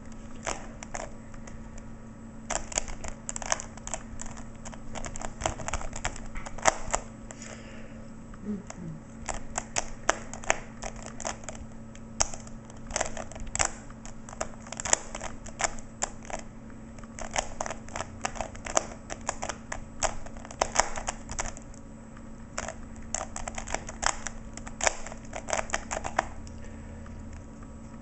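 Rubik's Cube being turned by hand during a solve: quick runs of plastic clicks and clacks as the layers rotate, with short pauses between runs, over a faint steady hum.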